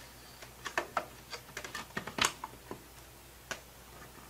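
Light, irregular clicks and taps of aluminum door-frame header pieces knocking against the wall and each other as they are pushed up into place in a doorway opening.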